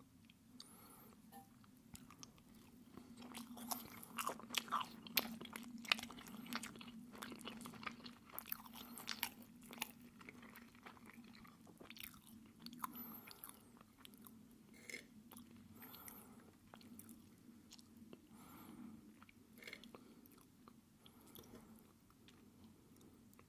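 Close-miked chewing of pancake with maple syrup: many sharp clicks and smacks, busiest in the first half, then slower rhythmic chewing.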